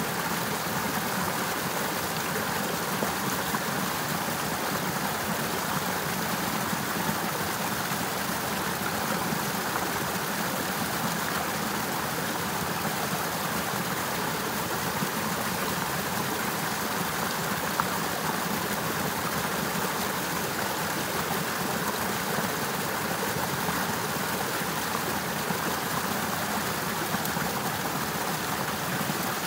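Partly frozen river flowing steadily, an even, unbroken rush of running water.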